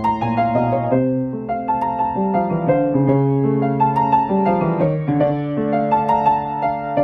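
Background music: a gentle piano piece playing a slow melody over chords.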